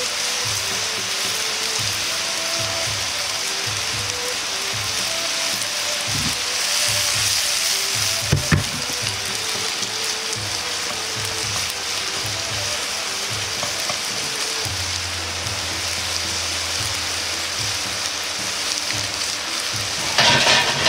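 Yakisoba noodles and pork belly pan-frying in oil in a frying pan: a steady sizzle as the noodle cake crisps and the pork browns. There are a couple of light knocks about midway and a louder rustle near the end as chopsticks work the noodles.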